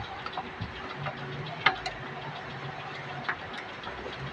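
Screws on an electric iron's plates being tightened: scattered sharp metal clicks and taps, the strongest about a second and a half in and again near the end, over a low steady hum that lasts a couple of seconds in the middle.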